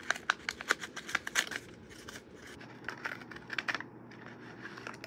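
Paper wrapping crinkled and torn open by hand to unwrap a small enamel pin. A quick run of sharp paper crackles comes first, then a few scattered crackles about three seconds in.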